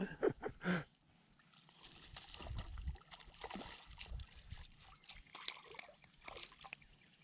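Light water splashing and sloshing around a small fishing boat, with scattered knocks and a brief voice near the start.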